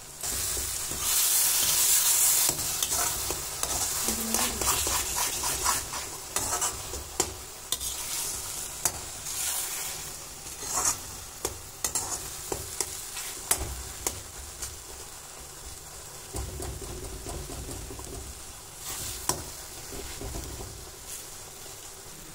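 Mashed eggplant bharta frying in oil in a kadai, sizzling, while a metal spatula stirs and scrapes it against the pan with sharp clicks. The sizzle is loudest in the first couple of seconds, then settles to a softer hiss under the scraping.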